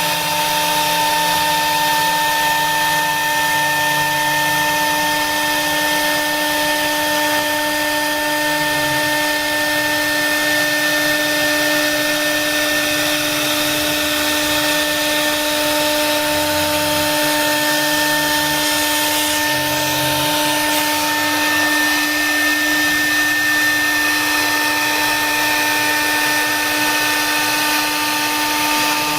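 CNC router spindle running steadily with a constant high whine and cutting hiss while carving wood, under a lower motor hum that shifts pitch every second or so as the machine moves.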